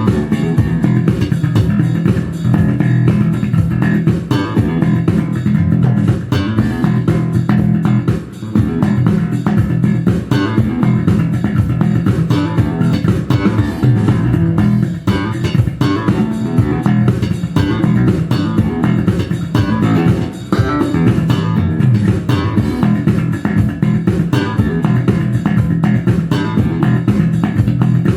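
Tobias Growler four-string electric bass played solo, slap style: a busy, continuous run of notes with sharp percussive attacks.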